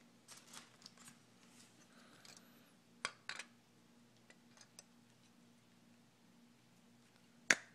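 Faint handling clicks and taps of a glass crystal ball being fitted into its sculpted Dementor claw stand. Two sharper clicks come about three seconds in, and the loudest, sharpest click comes near the end.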